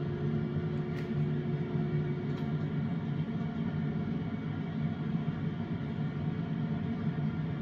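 Jet airliner cabin noise on descent, heard from a window seat by the wing: the steady rumble and drone of the underwing turbofan engines and airflow. One hum line in it fades out about two and a half seconds in.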